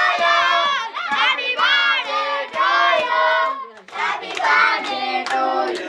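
A group of children singing and chanting together over rhythmic hand clapping, about three claps a second.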